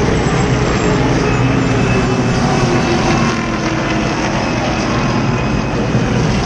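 Stock car V8 engines running as cars come down pit road at low speed, over a steady, dense wash of engine and track noise.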